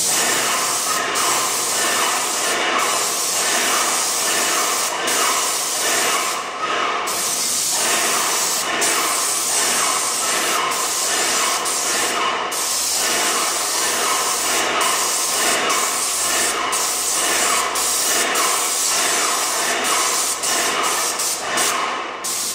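Paint sprayer spraying paint: a steady hiss, broken by many brief gaps.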